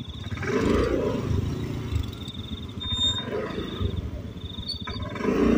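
Small automatic scooter engine revving unevenly in surges as it strains up a rough forest trail. High-pitched insects chirp in a steady broken pulse throughout.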